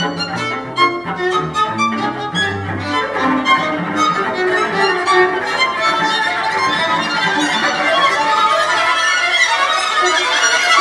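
Recorded music for bowed strings, violin to the fore, played back over loudspeakers. Short, detached notes at first give way to longer held notes after about four seconds.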